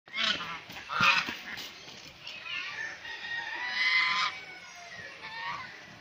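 Domestic geese honking: a string of loud, harsh calls, the strongest about a second in and a longer stretch of calling through the middle.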